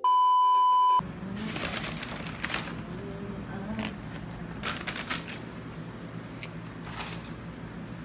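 A steady high test-tone beep for about the first second, cut off sharply. Then paper and cardboard food packaging rustles and crinkles in short bursts as a paper bag and a fried-chicken box are handled.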